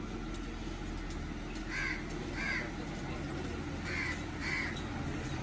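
A crow cawing four times, in two pairs about two seconds apart, over a low steady engine hum from the SUV idling forward.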